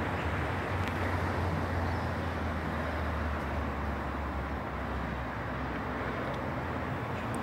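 Low rumble of a distant Sydney Trains T set (Tangara) electric train over a steady outdoor hiss; the low hum eases off about four and a half seconds in.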